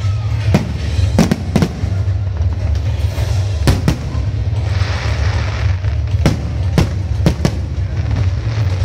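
Aerial fireworks shells bursting: about ten sharp bangs at irregular intervals, some in quick pairs, over a steady low rumble.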